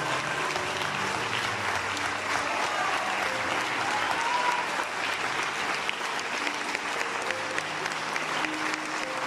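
Theatre audience applauding steadily, a dense patter of many hands clapping at the end of a stage performance.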